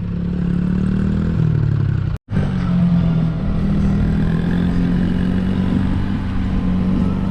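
Vehicle engine running steadily, its pitch stepping up about a second and a half in. The sound cuts out for an instant about two seconds in.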